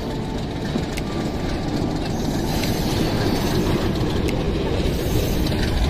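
Local passenger train running on the rails: a steady rumble of wheels and carriages with a few sharp clicks, growing a little louder toward the end.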